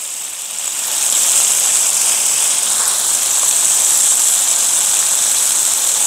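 Mustard-leaf kimchi sizzling in rendered pork-belly fat on a hot cast-iron griddle, the sizzle swelling during the first second and then holding steady.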